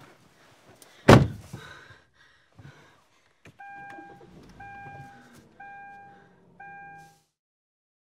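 An SUV's driver door slams shut about a second in, then the car's warning chime sounds four times, about a second apart.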